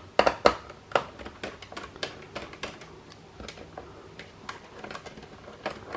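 Irregular light clicks and ticks of a screwdriver backing out one of the long screws from an Xbox One S's plastic case, with a few louder clicks in the first second.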